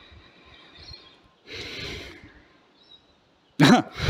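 A man's sharp breath out through the nose about one and a half seconds in, then a short, louder wordless vocal sound near the end: bemused reactions to a carburetor found running without its gaskets.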